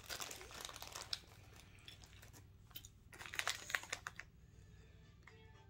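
Crinkling of a snack bag being handled, in bursts during the first second and again around three to four seconds in. Music starts near the end.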